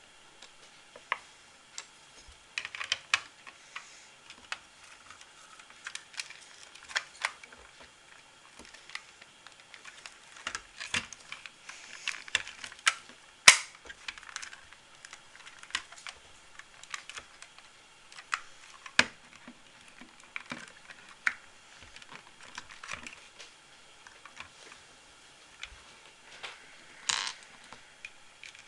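Small plastic LEGO pieces being handled and snapped together, with irregular sharp clicks and taps at an uneven pace.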